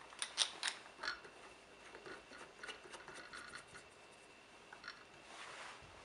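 Plastic tube connections being fitted by hand onto the plastic pump head of a Seko Tekna Evo dosing pump: faint clicks and scratches of plastic on plastic. A quick run of them comes in the first second, then scattered small ticks.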